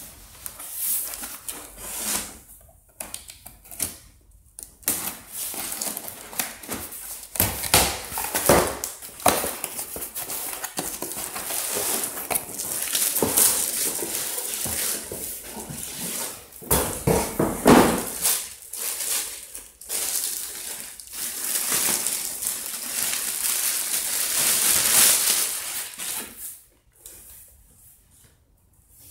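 A cardboard box being torn open, then the plastic bag around a padded bench backrest crinkling and rustling as the pad is slid out and the bag is pulled off, with small knocks of handling. It goes in uneven bursts and dies down near the end.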